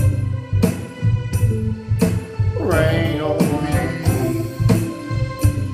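Music with a steady drum beat, about one strike every two-thirds of a second, over bass notes, and a voice singing a sliding phrase about three seconds in.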